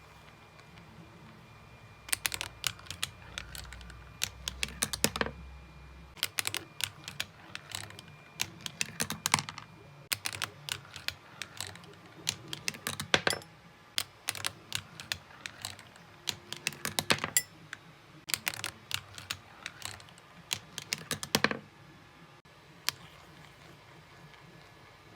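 Glass marbles clicking and rattling as they run down plastic slider track pieces and drop into gratin dishes, in quick bursts of sharp clicks. The clicking stops a few seconds before the end, with one last click after.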